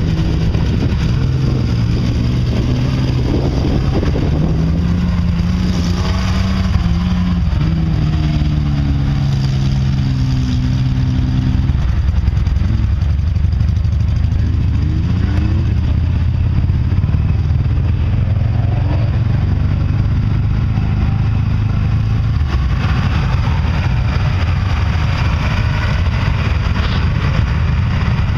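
Mud trucks' engines revving as they work through a mud bog, the pitch climbing and dropping repeatedly, then settling into a steadier low rumble about halfway through.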